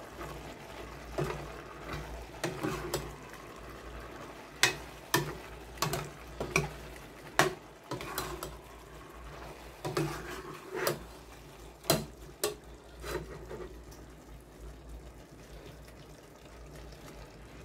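Metal ladle stirring sliced mushrooms in a stainless-steel pot, with irregular clinks and scrapes of the ladle against the pot. The clinks thin out near the end.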